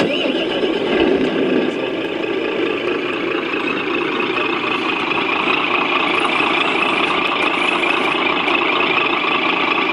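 Truck engine idling steadily at an even pitch. It starts abruptly at the very beginning and runs on unchanged.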